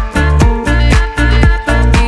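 Dance-style background music with a steady beat, about two beats a second, over a deep bass line.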